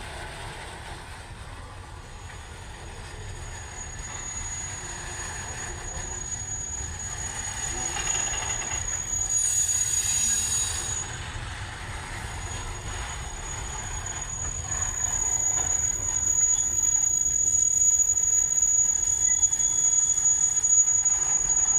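Train slowing to a stop, its steel wheels and brakes giving a steady high-pitched squeal over a low rumble. A louder, sharper squeal comes about ten seconds in, and the sound grows louder toward the end.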